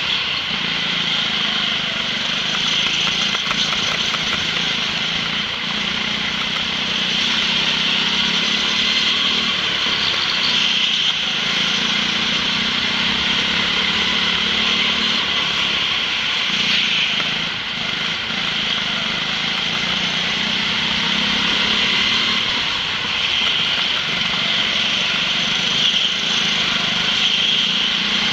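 Go-kart engine running continuously under way around the track, heard from a camera mounted on the kart, with small dips in level now and then.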